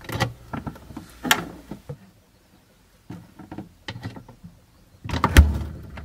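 Refrigerator door opening, a string of short knocks and clicks, then the door shutting with a heavy thump about five seconds in.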